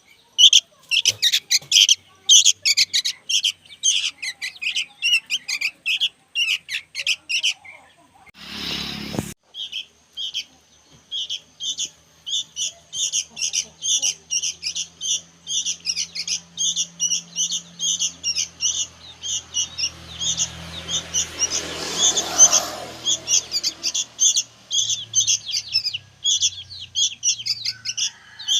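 Young sooty-headed bulbuls (kutilang) chirping continuously: short, high chirps, about three a second. A short burst of noise breaks in about eight seconds in, and a hiss swells and fades about two-thirds of the way through.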